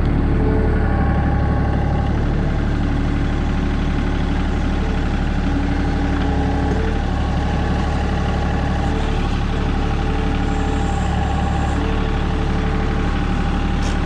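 John Deere 2032R compact tractor's three-cylinder diesel engine running steadily.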